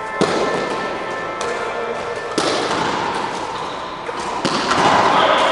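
Background music with a couple of sharp thuds, about a quarter second in and again about two and a half seconds in.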